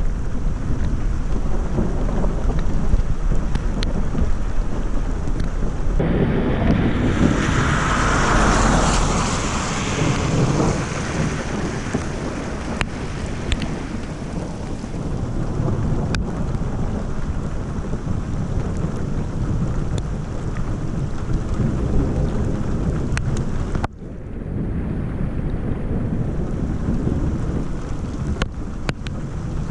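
Thunderstorm: steady rain and wind noise, with a roll of thunder swelling about six seconds in and fading out by about eleven seconds.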